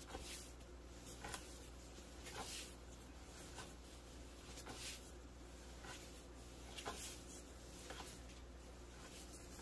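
Bread dough being kneaded by hand on a floured wooden board: faint soft thuds and rubbing as it is pushed, folded and turned, coming irregularly about once a second.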